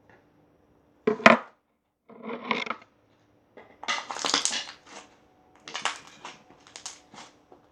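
Slime being pressed, crackling and popping in five short bursts separated by brief pauses, the sharpest about a second in.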